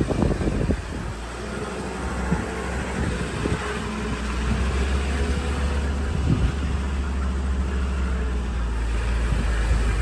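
A vehicle's engine running steadily at low speed while moving slowly over rough farm ground: a low, even hum with a couple of short knocks.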